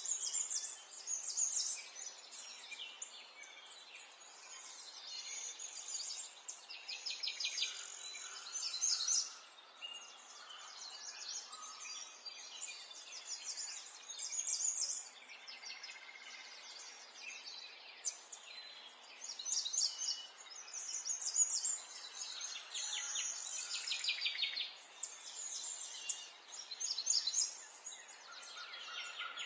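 Several birds singing, with quick chirps and rapid trills coming and going throughout, over a faint steady hiss.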